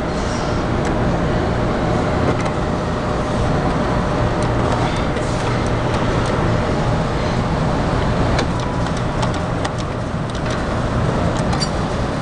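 Claw machine being played: a steady mechanical hum and rumble, with scattered light clicks in the second half.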